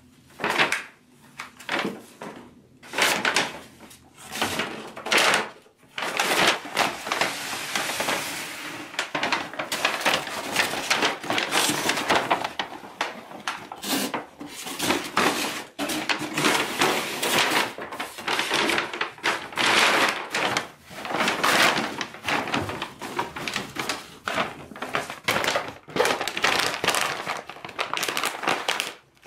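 Paper shopping bags crinkling, rustling and tearing as a beagle grabs them in his mouth and paws at them. The crackling comes in separate bursts at first and is almost continuous from about six seconds in.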